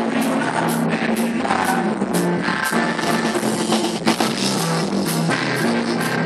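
Live band music amplified through a stage PA: an electric bass line and a drum kit keeping a steady beat, with some singing.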